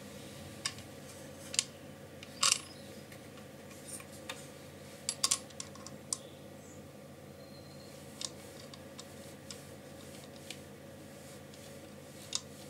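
Scattered small clicks and taps, loudest a double click about two and a half seconds in, as a steel bolt with a washer is turned by hand up into the nut of a 3D-printed plastic pulley on a microscope stage's base plate.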